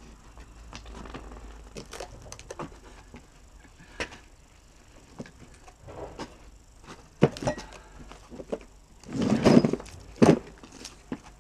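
Knocks and clunks from a Land Rover Defender beam axle with its wheels and tyres being shoved and rolled about on concrete, with a sharp knock about seven seconds in, a louder rush of noise around nine seconds in and another hard knock just after.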